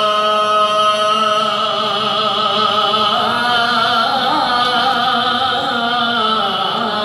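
A man's solo voice reciting an Islamic devotional chant, holding long, wavering melodic notes that shift pitch slowly without pause.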